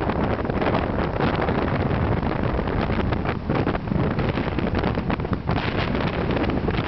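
Wind buffeting the microphone: a loud, gusty rushing rumble that keeps flickering up and down in level.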